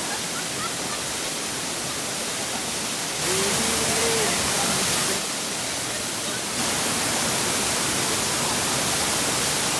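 Waterfall rushing: a steady hiss of falling water that steps louder about three seconds in, softer about five seconds in, and louder again a little after six and a half seconds.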